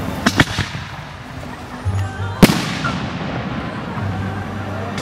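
Fireworks display: aerial shells bursting, with a few sharp cracks in the first half second and one loud bang about two and a half seconds in, over music playing underneath.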